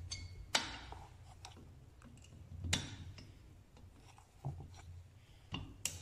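A few sharp metallic clicks and knocks from a hand tool working on a Peugeot 103 moped engine during reassembly, spaced irregularly over a faint low hum. The loudest come about half a second in and just before the three-second mark.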